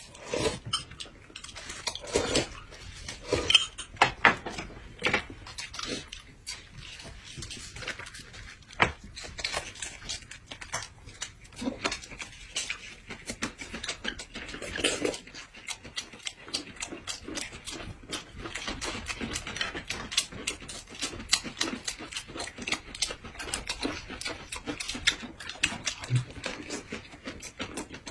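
Two people eating close to the microphone: chewing, slurping and lip-smacking in many short, irregular sounds, with occasional clicks of chopsticks and dishes.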